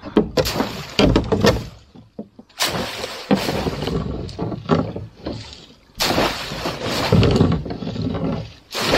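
Water splashing and knocking as a hoop net is hauled up over the side of an aluminum boat, its hoops bumping against the metal hull. A few sharp knocks come in the first second or so, then several loud surges of splashing, the biggest about three and about six seconds in.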